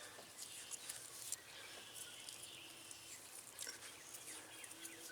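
Faint outdoor ambience: distant birds chirping, with a few faint clicks.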